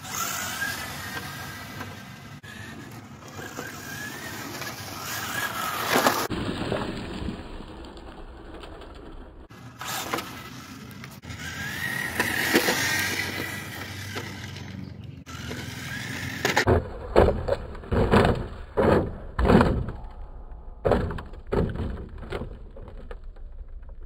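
Kyosho Fazer MK2 electric RC car driving on rough asphalt: a motor whine rising and falling with the throttle over tyre noise, strongest early on and again about halfway through. In the last third there is a run of loud, short rushing bursts, about one or two a second.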